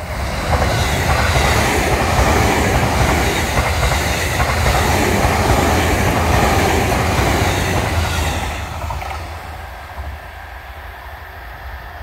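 JR East E257 series electric multiple unit passing close by at speed. It is loud from about half a second in and fades away as it recedes after about eight seconds.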